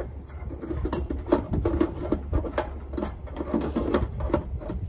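A fast, irregular clatter of clicks and rattles over a steady low engine rumble from the crane, while a rooftop HVAC unit hangs in its lifting straps.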